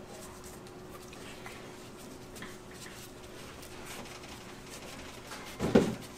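Light scattered clinks of kitchen utensils over a steady low hum, with one loud knock near the end.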